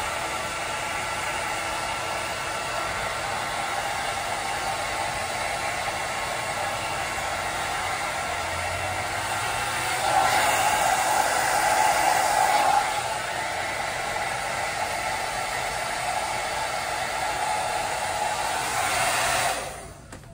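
Handheld hair dryer blowing steadily on glued quick-weave wefts to dry the bonding glue. It gets louder for a few seconds about halfway through and is switched off just before the end.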